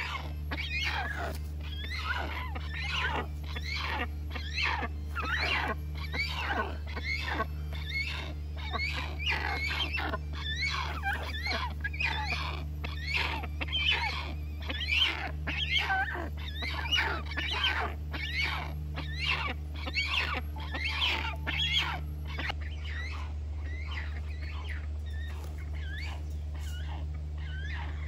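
Young rhinoceros hornbill calling over and over, short harsh calls at about two a second, growing sparse about 22 seconds in. A steady low hum runs underneath.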